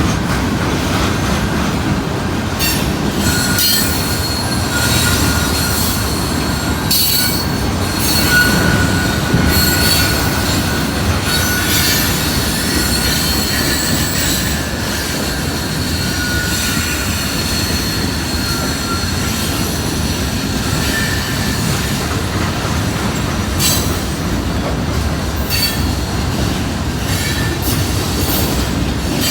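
CN freight train rolling past: a steady heavy rumble of wheels and cars, with high-pitched wheel squeal that comes and goes and occasional clacks over the rail joints.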